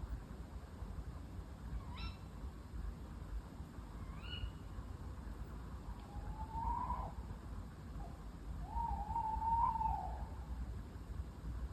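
An owl calling: two short sharp calls, then two longer wavering calls, the last one the loudest, over a low background rumble.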